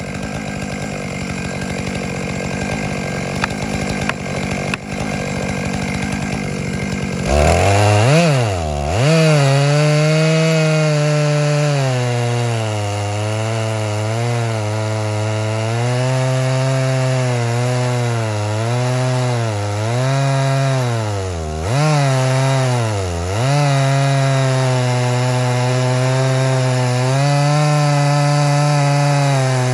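Two-stroke chainsaw on a chainsaw mill, running at a low, steady idle for about seven seconds, then throttled up and ripping lengthwise through a pine log. Its engine pitch dips and recovers several times as it loads up in the cut.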